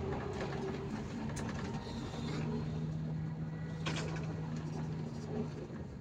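Bus engine running and tyres on the road, heard from inside the driver's cab while driving: a steady low hum over road noise, with a few light clicks or rattles.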